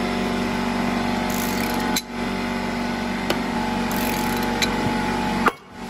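Powered ratchet running under load with a steady motor pitch as it drives a Teflon-taped bolt into the water-filled bore of a Ski-Doo primary clutch, which pressurises the water to push the clutch off the crankshaft. It pauses briefly about two seconds in and stops near the end with a click.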